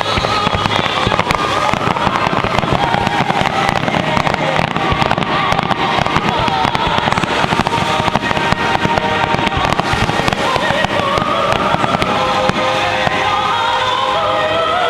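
Fireworks display: a steady stream of crackling and popping bursts, with music playing underneath.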